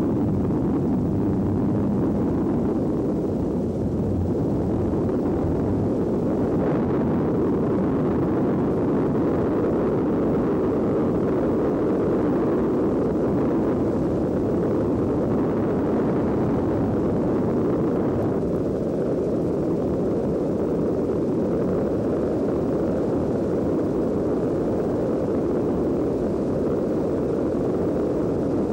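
Robinson R22 helicopter in flight, heard from inside the cabin: a steady, unbroken drone of engine and rotor noise.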